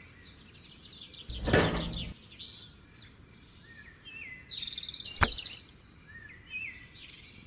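Small birds chirping repeatedly in the background, with a short rustling scrape about a second and a half in and one sharp click a little after five seconds as the small plastic pump and motor parts are handled and set down on concrete.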